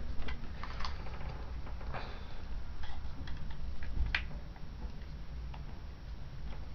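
Scattered small clicks and taps of a camera's casing and parts being handled during a teardown, with a sharper click about four seconds in.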